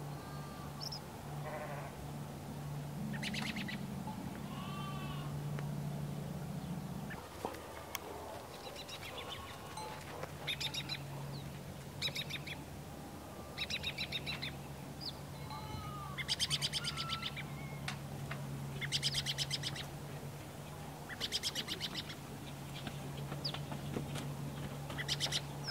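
Birds chirping in short trills every second or two, with a goat bleating near the start, over a steady low hum.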